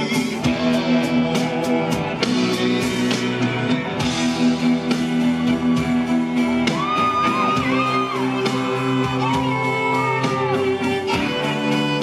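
Live rock band playing an instrumental passage with electric guitars, bass and drums. About halfway through, a lead line of held notes comes in, bending up and down.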